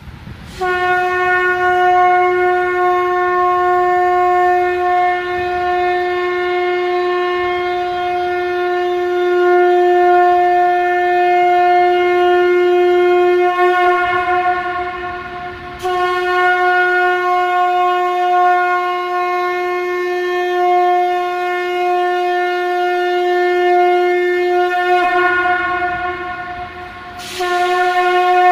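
Conch shell (shankh) blown in long held blasts: one steady note with bright overtones. The note breaks off briefly about halfway through, wavers and fades near the end, then starts again.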